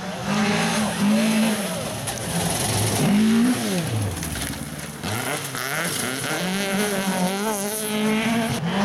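Two-wheel-drive rally car engine revving hard through a gravel corner: the pitch climbs, falls away steeply at about the midpoint as the car passes, then climbs again as the revs build, over a hiss of tyres on loose gravel.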